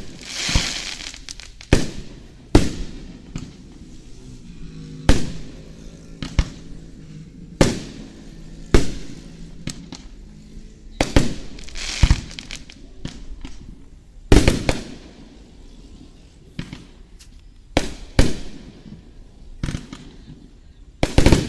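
Fireworks display: aerial shells bursting in sharp bangs every second or two, some trailing off into a longer hiss.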